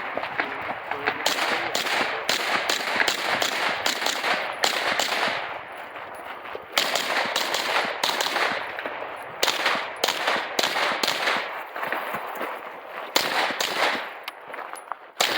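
Pistol-caliber carbine firing rapid semi-automatic shots in fast strings, broken by two short pauses, one a little before the middle and one near the end.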